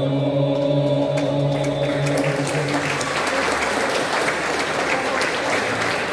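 A men's vocal group holds the final chord of an unaccompanied song, which fades out about two to three seconds in as audience applause rises and carries on.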